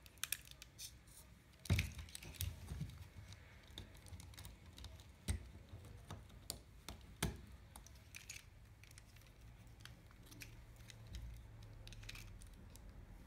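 Light, scattered clicks and taps of plastic robot-arm parts being handled as a small servo is pushed into the arm's frame, the loudest knock about two seconds in.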